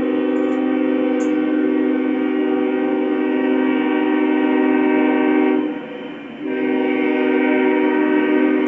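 Diesel locomotive air horn sounding, a chord of several steady tones. One long blast lasts about five and a half seconds, then after a brief break a second long blast begins and carries on.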